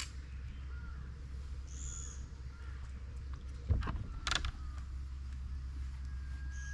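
Wild birds calling: a short rise-and-fall note repeats about once a second, with a higher call about two seconds in. A thump and a sharp click come a little past the middle, over a steady low hum.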